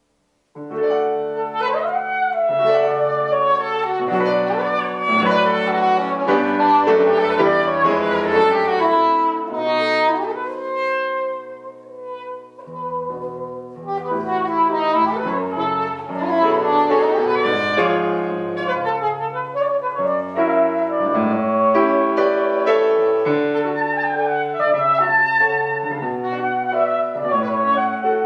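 Soprano saxophone playing a tango melody over grand piano, starting about half a second in. Around ten seconds in the saxophone holds a long note and the music thins out briefly before both instruments pick up again.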